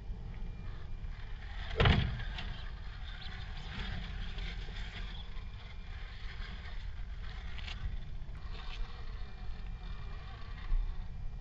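Radio-controlled rock crawler's electric motor and gearbox whining as it crawls over rock, with a sharp knock about two seconds in. A steady low rumble runs underneath.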